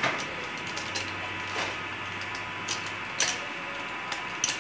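Saw chain being handled on a chainsaw guide bar during a chain change: the loose steel links give a few scattered sharp clicks and clinks against the bar, over a faint steady hum.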